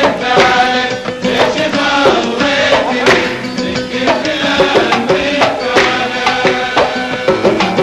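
Gulf folk song in the old Kuwaiti sawt style: a men's chorus sings over rhythmic group hand-clapping and percussion, the claps sharp and frequent.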